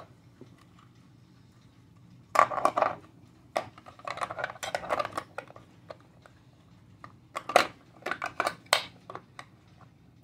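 Small plastic travel alarm clock and its hinged plastic flip case being handled: irregular clicks, knocks and rattles in a few clusters as the clock is pressed into the case and tipped upright.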